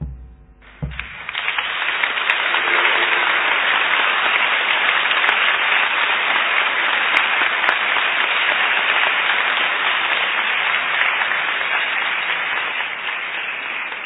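Large crowd applauding, swelling up within about a second and holding steady, easing slightly near the end.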